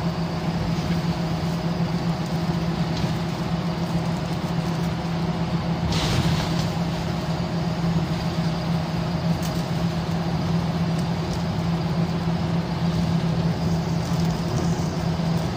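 Scania L94UB single-decker bus's diesel engine running, heard from inside the passenger cabin as a steady low hum. A short burst of hiss comes about six seconds in.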